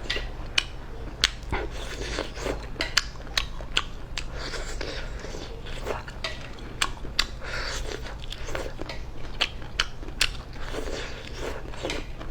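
A person eating close to the microphone: crisp bites and crunching chews, with sharp crunches coming irregularly, about two a second.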